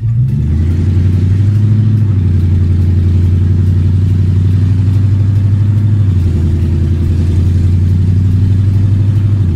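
Swapped-in Lexus 3UZ-FE V8 engine in a Mercedes C230 coupe, heard from inside the cabin while driving: a loud, steady low drone. The drone shifts in pitch about two seconds in and again about six seconds in.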